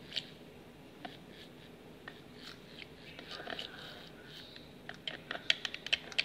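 Liquid soap being stirred with a small plastic stirrer in a plastic measuring jug, the stirrer clicking and tapping against the jug. A few light clicks at first, then a quick run of sharp clicks near the end.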